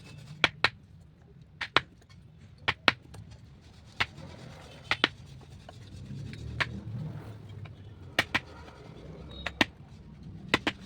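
Irregular sharp taps and knocks of hand tools on wood, several in quick pairs, with soft rubbing and scraping between them.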